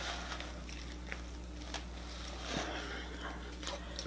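Faint close-up chewing of a mouthful of a tortilla wrap, with a few soft clicks and crackles over a steady low hum.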